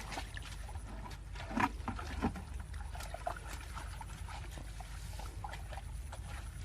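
Water sloshing and dripping with scattered small splashes, the louder ones about one and a half and two seconds in, over a low steady rumble.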